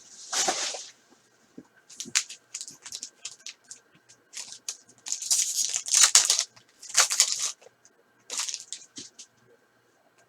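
Trading card pack wrappers being torn open and crinkled, with the cards inside handled, in irregular short rustles. The longest rustles come about half a second in and again around five to six and a half seconds in.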